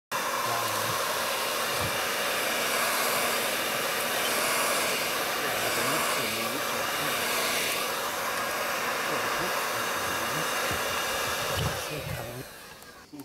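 A 1500 W electric heat gun blowing hot air steadily while plastic is melted to weld a mesh patch into a cracked plastic barrel, with a few faint low knocks. The blowing fades out near the end.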